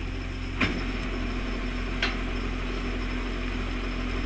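Crane tow truck's engine running steadily while its winch pulls on an overturned truck, with two sharp metallic clanks about a second and a half apart.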